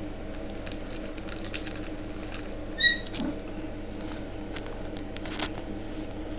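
Trading cards being handled: light scattered clicks and rustles of cardboard and pack wrappers over a steady low room hum, with one brief high chirp about three seconds in.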